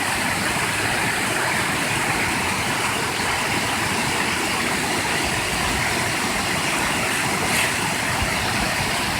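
Small waterfall rushing steadily, an even wash of falling water.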